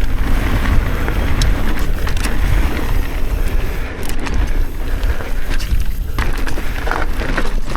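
Mountain bike riding fast on a dirt trail: wind rumbling on the microphone over tyre noise and the bike's rattle, with scattered small knocks from the trail.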